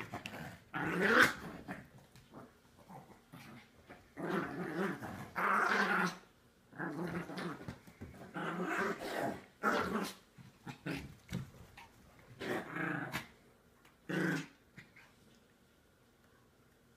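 Dogs growling in repeated rough bursts while contesting a toy, going quiet near the end.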